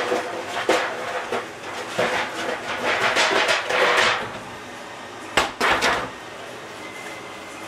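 Pots and pans clattering and knocking against each other as someone rummages through a lower kitchen cabinet, with two sharper knocks about five and a half seconds in.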